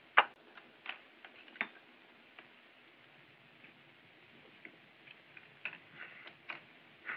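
Irregular light clicks and clinks of chopsticks against porcelain rice bowls and dishes as tea-soaked rice is eaten at a low table, the sharpest clink just after the start and a quicker run of clicks near the end.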